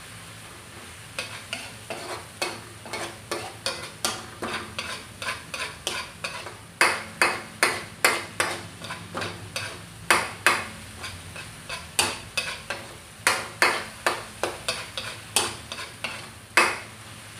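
A metal utensil scraping and knocking against a metal wok as chopped pork sisig is stirred while it fries, about two strokes a second, starting about a second in. A faint frying sizzle runs underneath.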